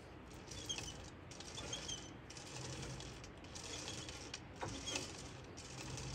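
Atlas TH54 lathe running slowly, its belts and pulleys turning with a steady low hum and a few short squeaks, as the work spins under a dial indicator to check runout.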